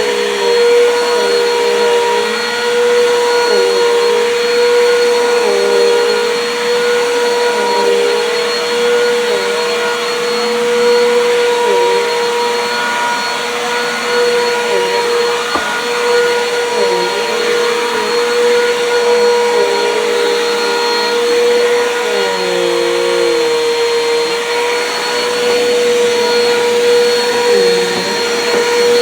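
Bissell PowerForce Compact Turbo vacuum cleaner running steadily while vacuuming carpet: a continuous motor whine over rushing air, its pitch dipping briefly every second or two.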